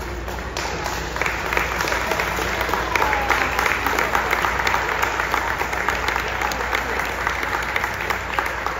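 Spectators applauding, with a few voices calling out. The clapping swells about a second in and tapers near the end.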